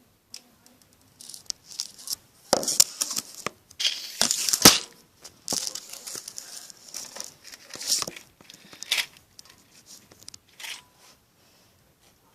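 Slime being squeezed and pulled apart by hand, in irregular bursts of sticky crackling and small pops, loudest about four to five seconds in.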